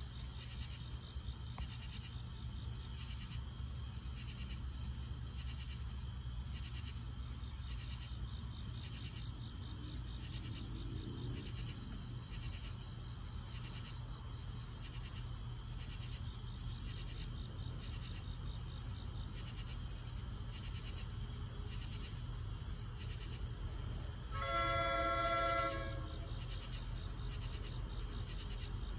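Crickets chirping in a steady pulsing chorus over a constant deep rumble. About 24 seconds in, the approaching NJ Transit train's horn sounds one chord-like blast of about a second and a half, the loudest sound here.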